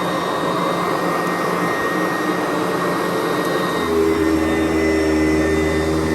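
Sanitaire SC889B upright vacuum cleaner running steadily while vacuuming carpet. A deeper hum joins in about four seconds in.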